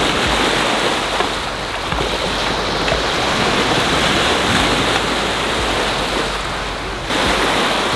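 Lake waves washing onto a rocky beach, with wind buffeting the microphone.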